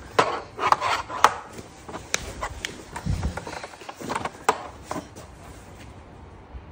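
Toddler tapping and rubbing a pen on a children's writing pad: a run of light, irregular taps and knocks with a low thump about three seconds in, growing quieter near the end.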